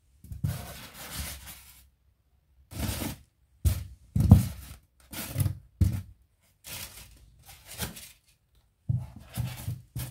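Hands handling clay toy figures and setting them down on a tabletop: about nine short rubbing and brushing sounds, several starting with a soft thump, with brief pauses between.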